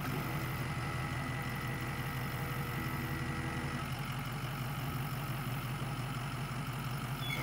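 Pickup truck's engine idling steadily, with a faint steady whine over it that stops about four seconds in.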